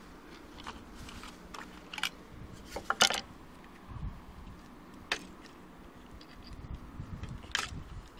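Handling noise: about half a dozen short, sharp clicks and taps as an opened plastic battery pack and its cells are turned over in the hand. The loudest comes about three seconds in.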